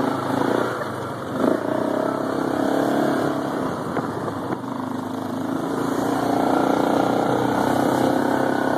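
A small vehicle's motor running as it drives over a rough dirt trail, its pitch rising and falling with speed, with a brief dip and knock about a second and a half in.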